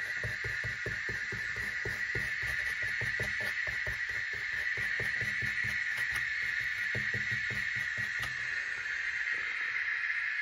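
Small paintbrush dabbing and scrubbing dark grey paint onto a model rock face in quick, soft strokes, several a second, stopping near the end. A steady high-pitched hum runs underneath.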